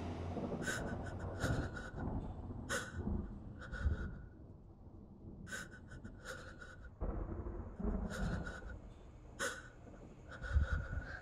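A person breathing in short, uneven breaths in and out, roughly one a second, often in pairs. A dull thump comes near the end.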